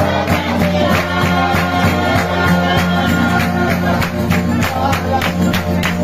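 Vanuatu John Frum string-band music: a group singing over strummed string instruments, with a fast, even strumming beat.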